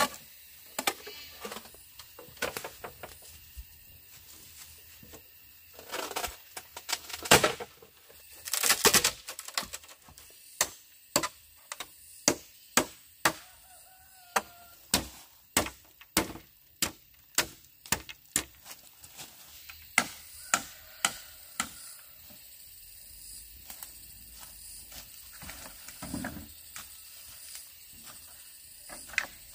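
A tool striking wood in quick, evenly spaced knocks, about two a second for some twelve seconds, after a few seconds of louder scraping and handling noise. A brief high call sounds about halfway through the knocking.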